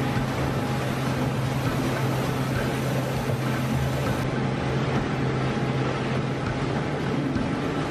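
Steady drone of burger-patty forming machinery and conveyor belts running, with a constant low hum under it.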